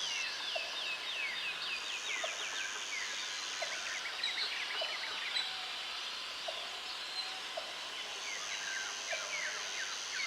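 Forest ambience of wild animal calls: repeated quick trains of short, falling chirps, over a steady high whine that starts and stops a few times and faint regular low pips.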